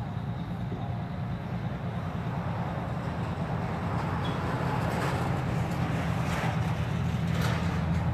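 Vehicle engines idling with a steady low rumble, from a fire truck and police patrol vehicles waiting to pull out, with a few short hiss-like noises in the second half.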